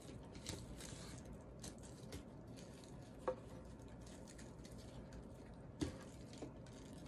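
Hands softly rustling and handling a glittery ribbon while tying a bow, with two sharp little clicks, about three seconds in and just before the end.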